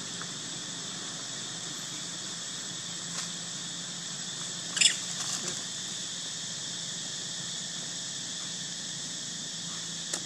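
Steady high-pitched drone of insects, with one short, sharp squeal from a baby long-tailed macaque nearly five seconds in, followed by a few fainter sounds.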